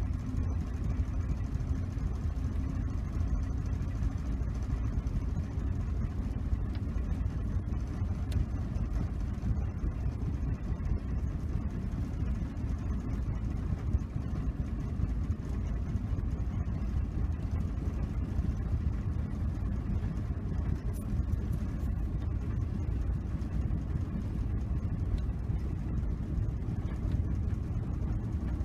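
Steady rumble of a vehicle on the move: engine and road noise running evenly, with no change in speed.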